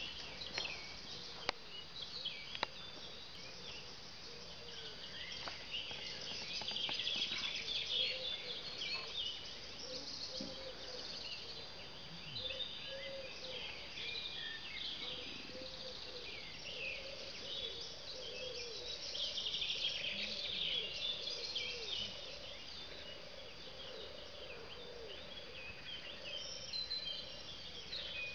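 Outdoor background of many small birds chirping and twittering, with overlapping short calls throughout and a faint steady high whine, and a few sharp clicks in the first seconds.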